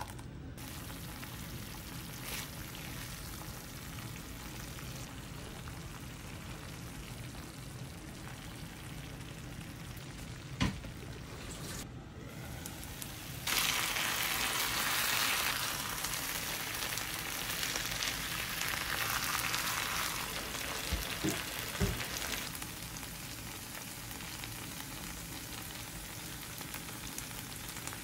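Tomato sauce sizzling steadily in a frying pan, with a few sharp knocks of a spatula against the pan. About halfway through, the sizzle turns markedly louder as pieces of fried sea bass are laid into the hot sauce, then eases off.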